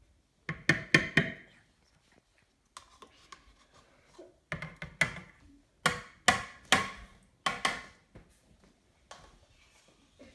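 Kitchen utensils and containers knocking and clattering: irregular clusters of sharp taps, several in quick succession about half a second in, then more groups through the middle and a last tap near the end.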